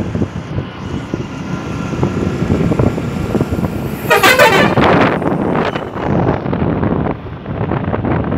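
Wind buffeting the microphone over the running of a vehicle moving along a road, with a short horn blast about four seconds in.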